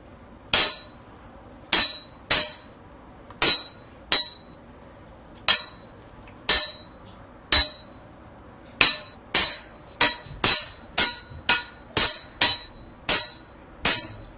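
Sword blades clashing, a sword-fight sound effect: a string of sharp, ringing metal clangs. They come about a second apart at first, then faster, about two a second, from the middle on.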